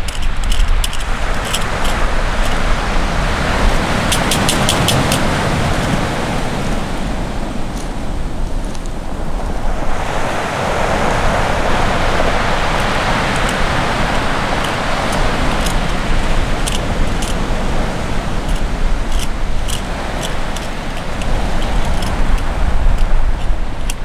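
Ocean surf breaking and washing up the shore in long surges, the strongest swelling about halfway through, with scattered sharp clicks near the start, around four seconds in and near the end.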